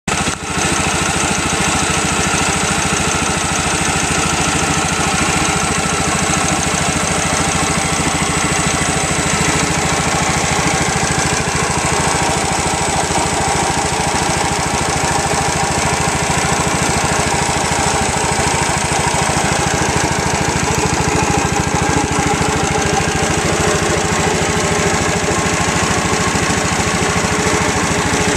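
1934 Stover MV-5 two-cylinder engine running steadily with a rapid, even firing beat.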